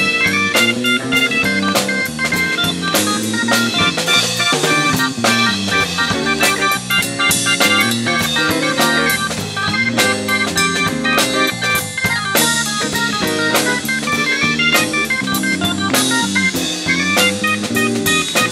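Jazz-funk fusion band playing live, a drum kit keeping a busy beat under quick melodic lines.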